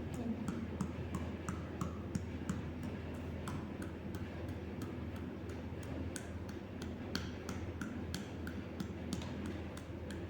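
Light, sharp taps, several a second and not quite evenly spaced, over a low steady hum.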